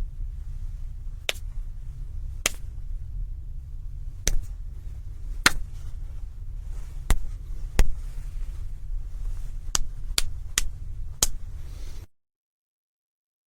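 A series of about ten sharp slaps at uneven intervals, over a steady low hum.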